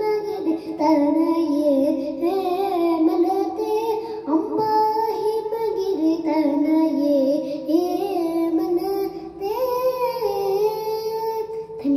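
A young girl sings a Carnatic kriti in raga Shuddha Dhanyasi into a handheld microphone, her unaccompanied voice moving through continuous quick melodic phrases.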